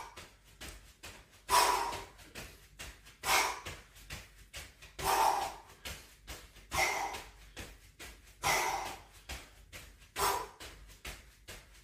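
A man breathing out hard in regular puffs, six of them about every two seconds, while doing jumping jacks. Quick light taps of his feet landing come in between the breaths.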